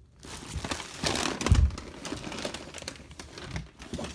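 Rustling and handling noise as a phone is moved against fabric, with irregular clicks and a dull thump about one and a half seconds in.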